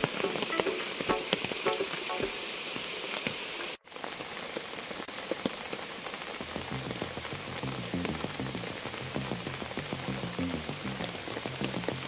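Heavy rain falling in a rainforest, a dense patter of drops. The sound cuts out for a moment about four seconds in, and from about six seconds on low tones that step up and down come in under the rain.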